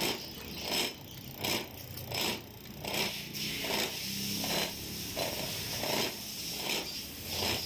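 Freshly rebuilt diesel injector on a bench tester spraying fuel in short repeated hissing bursts, about one every three-quarters of a second.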